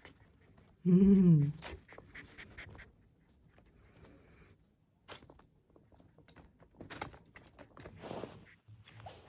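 Pigs shifting about in straw bedding in a freshly cleaned-out pen: scattered rustling, crunching and clicks. About a second in there is one loud, short call that rises and falls in pitch.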